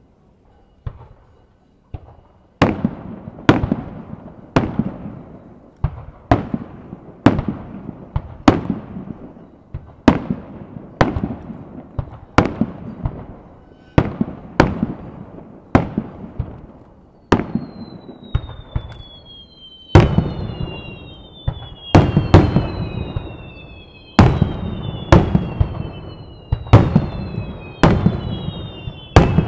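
Aerial fireworks shells bursting in a rapid series, sharp bangs about once a second, each with a trailing echo. From about halfway in, high whistles falling in pitch sound among the bangs, and the bangs grow deeper and louder near the end.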